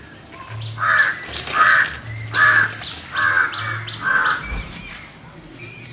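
A bird cawing five times in a row, harsh calls evenly spaced a little under a second apart.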